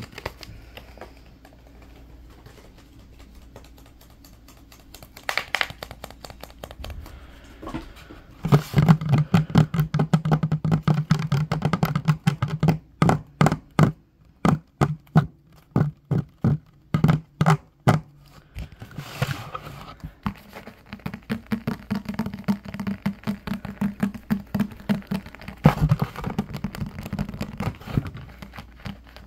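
Fingertips tapping fast on a wooden tabletop, starting after several quieter seconds, in dense runs broken by short pauses. Toward the end the tapping is on the cover of a hardcover Bible.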